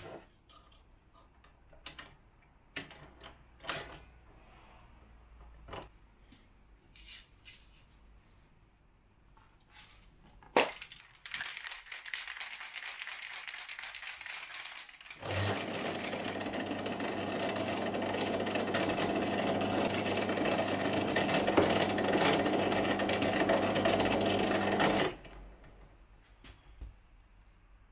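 Light clicks and knocks of handling, a sharp knock, and a few seconds of hiss. Then an electric motor runs steadily with a constant hum for about ten seconds and stops abruptly.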